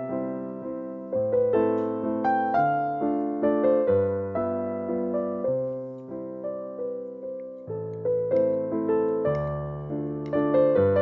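Background piano music: a gentle melody of struck notes, each fading before the next.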